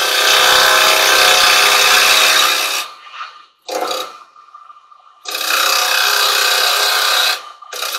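A carbide-tipped chisel cutting a spinning silver birch bowl blank on a wood lathe, making a steady scraping hiss. The cut breaks off about three seconds in, with one brief touch of the tool in the gap, and resumes about two seconds later before breaking off briefly near the end.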